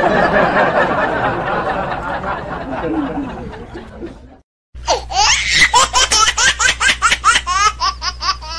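Added canned laughter: a burst of group laughter for about four seconds, then after a brief break a single voice laughing in quick repeated ha-ha bursts, about three or four a second, over a steady low hum.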